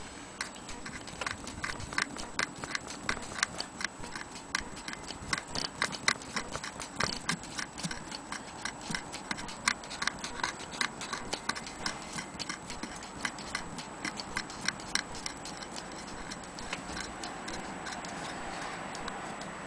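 Antique Willcox & Gibbs sewing machine running and stitching fabric, its needle mechanism clicking a few times a second; near the end the clicking blends into a steadier running sound.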